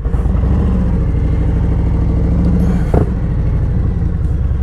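Touring motorcycle engine running at low speed as the bike rolls slowly, the revs lifting slightly in the middle. A single sharp knock sounds about three seconds in.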